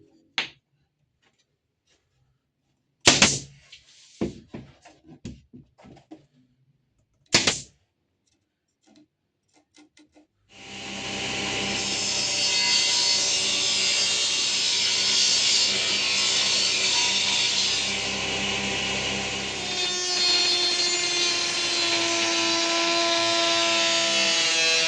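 Woodworking sounds: scattered light knocks and two brief loud bursts of a tool on wood. About ten seconds in, a power tool starts cutting or working wood and runs continuously.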